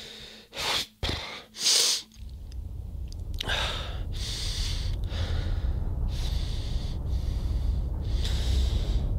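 A man breathing close to the microphone: three quick, loud breaths in the first two seconds, then slower, softer breaths every second or so. A low rumble starts about two seconds in and slowly grows louder under the breaths.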